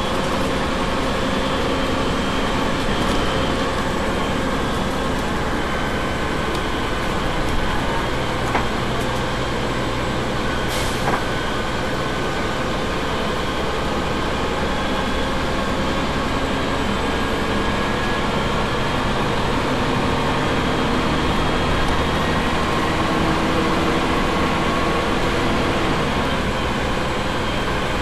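Double-decker bus diesel engine idling steadily while the bus stands at the stop. A single short sharp click about eleven seconds in.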